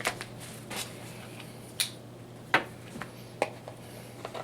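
Scattered sharp clicks and taps from a camera box and its packaging being handled during unboxing, about six over a few seconds, over a steady low background hum.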